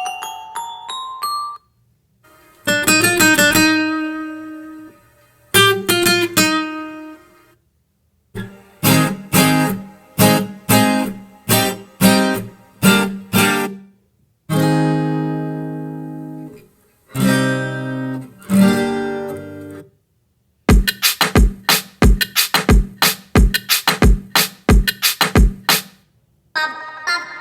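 A series of short music clips with plucked, guitar-like notes, each a few seconds long and stopping abruptly before the next begins. Several are runs of quick plucked notes, and one near the end adds a deep bass beat about twice a second.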